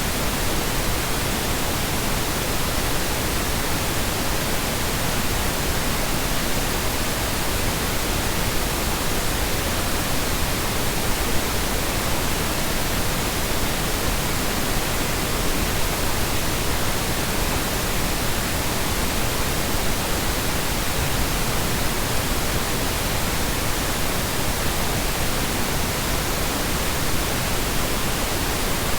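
Steady synthetic colour noise: an even, unbroken hiss spread across the whole range of pitch, with no changes in level.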